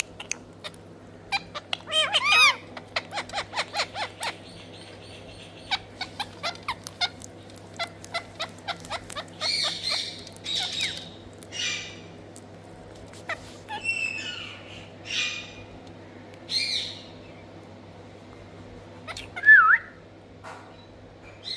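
Pet ringneck parakeet calling: a quick run of clicks and short chirps, then scattered harsh squawks and screeches, and a loud bending whistle-like call near the end. A steady low hum runs underneath.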